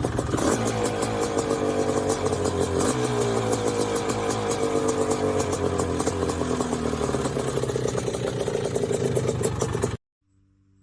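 Engine running steadily with rapid, even firing pulses, its pitch sagging slowly, then cut off abruptly near the end.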